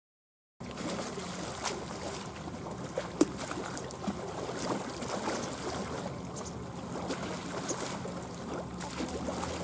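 Tugboat's diesel engine running with a steady low hum over water lapping and splashing, with a few sharp clicks, the loudest about three seconds in. The sound cuts in suddenly about half a second in.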